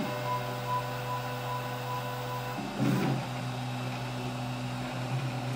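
Prusa i3-style 3D printer running a print: its stepper motors whine in steady tones that change pitch as the head moves, with a short burst of noise about three seconds in.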